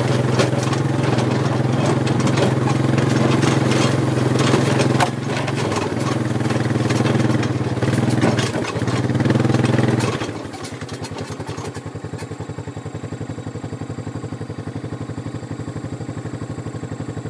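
A vehicle engine running steadily with clattering over it. About ten seconds in it drops to a quieter idle with an even pulsing beat.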